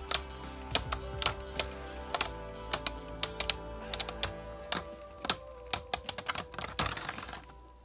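Two 3D-printed plastic Beyblade tops with metal parts clashing over and over in a stadium: sharp, irregular clacks several times a second over a steady spinning hum. The clacks thin out and stop shortly before the end as both tops run out of spin, a round that ends in a draw.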